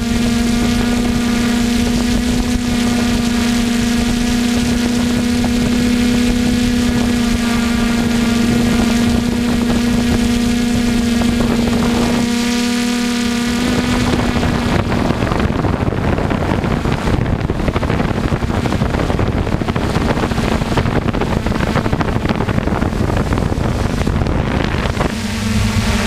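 DJI F450 quadcopter's four E300 brushless motors and propellers heard from its onboard camera: a steady, even-pitched buzz. About halfway through, a rushing wind noise on the microphone takes over and the buzz grows fainter as the drone flies on.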